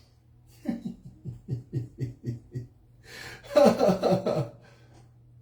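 Laughter after a joke: a run of short rhythmic ha-ha pulses, about four a second, then a louder burst of laughing about three and a half seconds in.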